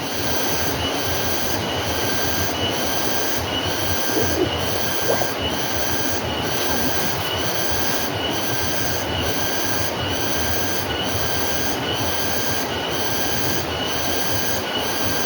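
Steady, shrill insect chorus of high buzzing tones that swell and fade about once a second.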